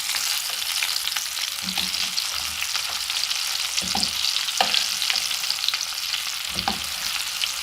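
Breaded panée cutlets shallow-frying in a pan of oil: a steady crackling sizzle, with a few faint low knocks.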